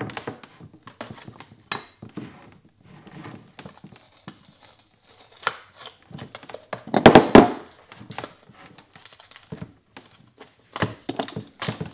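Small metal pry bar levering a glued battery management board off the top of a LiFePO4 battery: scattered scrapes and clicks, then a loud tearing crackle about seven seconds in as the adhesive gives way. A few sharp knocks near the end.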